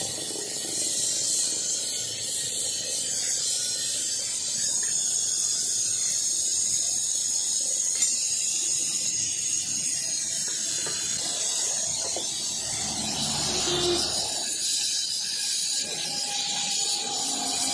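Gas welding torch flame hissing steadily while an aluminium pipe joint is welded, with some irregular clatter of metal as the pipe and rod are handled about two-thirds of the way through.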